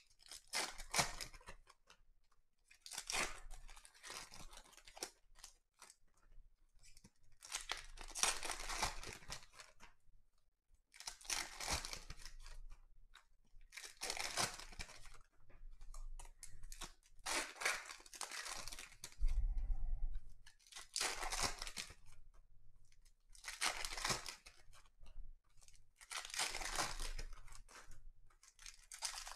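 Foil trading-card pack wrappers being torn open and crinkled, one pack after another, about nine bursts of tearing a few seconds apart with short pauses between.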